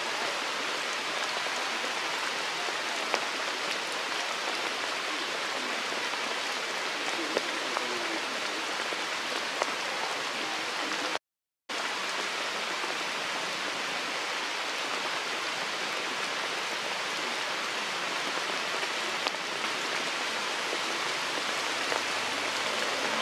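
A steady, even hiss with no pitch, like rain or running water. A handful of faint ticks sit over it, and the sound cuts out completely for about half a second just past the middle.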